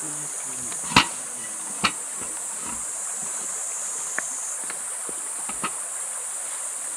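Steady, high-pitched drone of insects, with a few sharp knocks scattered through it, the loudest about a second in.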